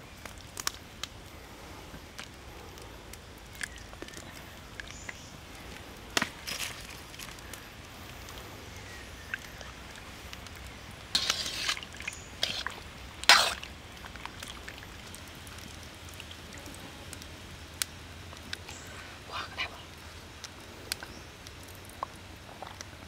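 Live water snakes dropped and pushed into a wok of hot water: scattered splashes and sloshes, the loudest cluster a little past halfway, over a faint steady low rumble.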